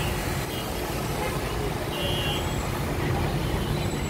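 Street traffic: motorbike and truck engines running steadily, with a motorbike passing close at the start.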